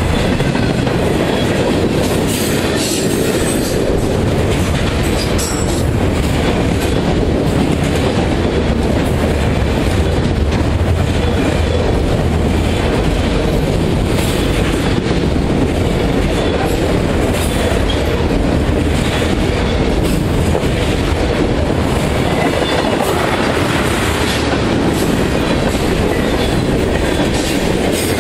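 Freight cars of a mixed manifest train rolling past at close range: a loud, steady rumble of steel wheels on rail with repeated clicks and rattles as wheelsets cross rail joints.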